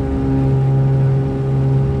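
Lake Renegade amphibian's pylon-mounted pusher piston engine and propeller running at a steady, even drone.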